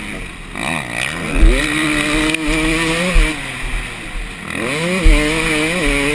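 2013 KTM 250 SX two-stroke motocross engine, fitted with the red power-valve spring, heard from the rider's helmet under hard throttle. Its revs climb steeply about a second in and hold until the throttle is backed off around three seconds in, then climb and hold again near the end. Low thumps from the bike over the track and wind rushing on the microphone run under it.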